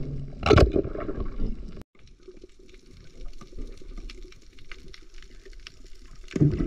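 Underwater water noise: a muffled low rush with scattered faint clicks and crackles, with a loud short whoosh of moving water about half a second in and again near the end. The sound cuts out briefly near two seconds.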